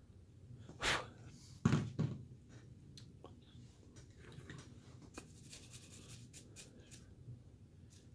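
Quiet scratchy cuts and clicks of a carving knife working a basswood figure, with two louder knocks about one and two seconds in and a run of small clicks and scrapes a few seconds later.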